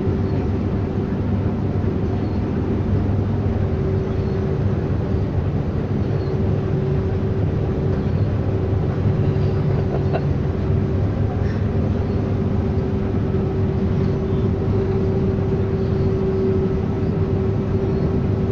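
New Holland CX8.90 combine harvester heard from inside its cab while harvesting: a steady drone of engine and threshing machinery with a constant whine running through it.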